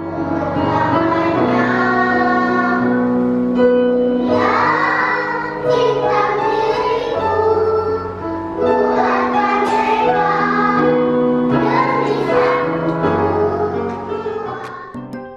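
Children's choir singing in phrases of a few seconds, over held keyboard accompaniment.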